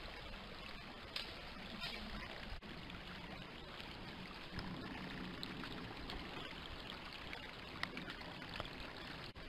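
Shallow stream water trickling steadily, with a few faint clicks.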